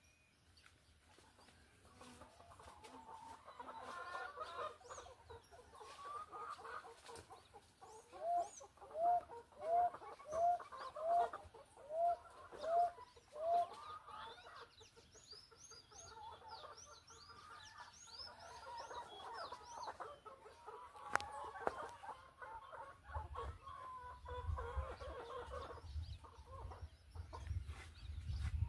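Chickens clucking, with a run of about nine loud, evenly spaced calls in the middle. Small birds chirp high and faint after the run, and a low rumble comes in near the end.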